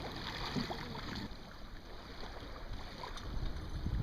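Water washing along the hull of a small puddle duck racer sailboat under way, with a steady low wind rumble on the microphone.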